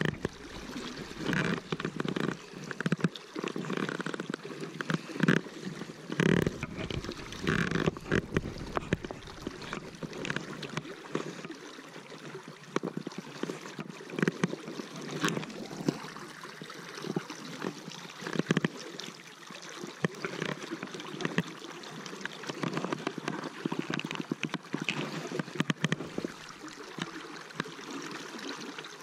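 River current rushing and splashing around a wading angler, with irregular splashes and knocks, busiest in roughly the first ten seconds.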